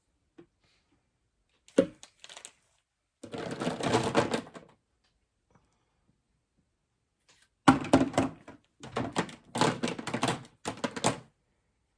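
Markers clattering and clicking against one another as they are rummaged through in search of a particular colour. A few separate clicks come first, then a short rattle, then a longer, louder run of clatter in the last third.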